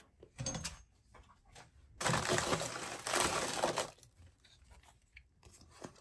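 Packaging crinkling and tearing for about two seconds in the middle, as stickers are handled and pulled out of the parcel, with a few short light rustles and taps before and after.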